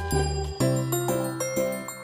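Background music: a light instrumental tune over a low bass, its notes changing about twice a second.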